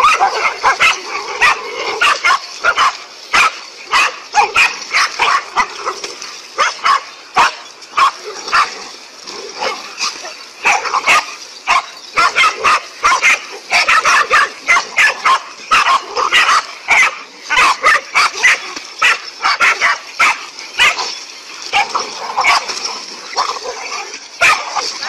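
A pack of dogs barking rapidly and over one another, several barks a second without a break, as they bait a large snake.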